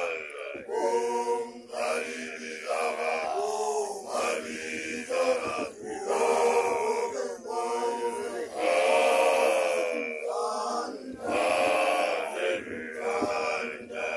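Young Basotho initiates' male voices chanting in phrases of a second or two, each held on a pitch with short breaks between.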